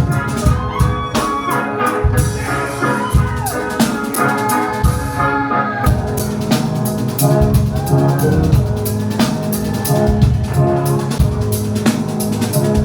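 A rock band playing live in an instrumental passage of the song: a steady drum kit beat with a deep bass part and pitched melodic lines that bend and slide over it.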